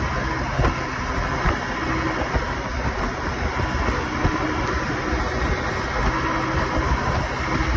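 Honda motorcycle engine running steadily at cruising speed, mixed with heavy wind buffeting on the microphone.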